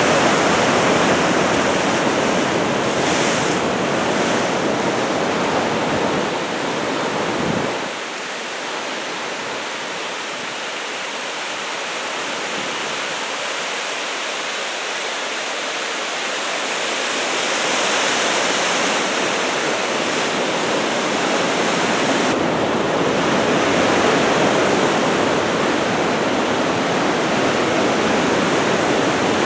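Ocean surf from typhoon swell breaking and washing in continuously, with wind on the microphone. The deep rumble thins out about eight seconds in and builds back toward the end.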